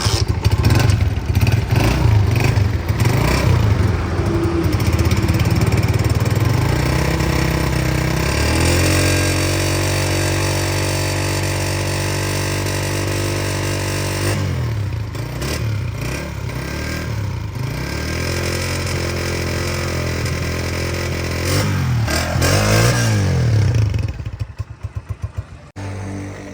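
Honda 125 motorcycle's single-cylinder four-stroke engine running and being revved up and down, held at a steady speed for several seconds in the middle, then blipped a few more times before the sound drops away and turns choppy near the end.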